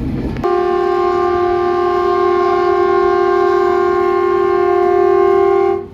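Train horn sounding one long, steady blast of several notes at once, starting about half a second in and cutting off abruptly just before the end, as a warning at a level crossing.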